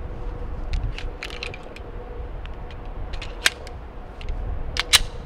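Clicks and metallic clacks of a Glock 19 pistol being worked by hand to clear a jam, a type 3 malfunction (double feed): a run of light clicks, then two sharper clacks about three and a half and five seconds in.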